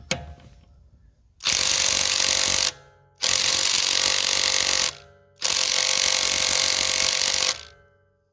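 Hart 20V 3/8-inch cordless impact wrench, driving a 22 mm socket through a half-inch adapter, hammering on a lug nut torqued to 130 foot-pounds in three bursts of a second or two each with short pauses between. The repeated tries show it struggling to break the nut loose.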